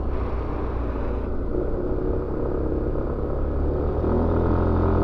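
Suzuki Avenis 125 scooter's single-cylinder engine running steadily, heard from on board. A rushing hiss dies away about a second in, and the engine settles into a steadier, slightly louder hum near the end.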